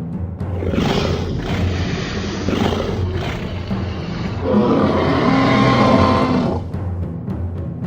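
Dinosaur roar sound effects over background music with a steady drum beat: a rough roar about a second in, then a louder, longer, pitched roar from about four and a half to six and a half seconds.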